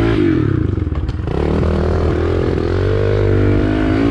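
Small four-stroke pit bike engine running close by, revving so its pitch rises and falls several times, with a brief knock about a second in.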